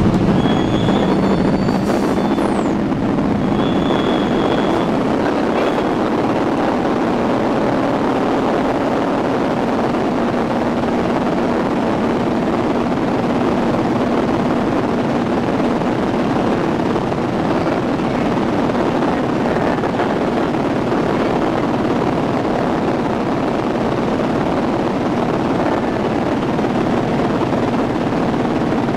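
Antonov An-2 biplane's nine-cylinder Shvetsov ASh-62 radial engine and propeller at takeoff power, heard from inside the cabin. It is a loud, steady drone through the takeoff roll and lift-off.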